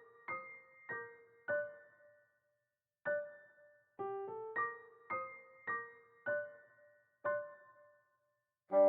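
Background music: a slow electric piano melody of single struck notes, each ringing and fading, with two short pauses. A held brass chord comes in at the very end.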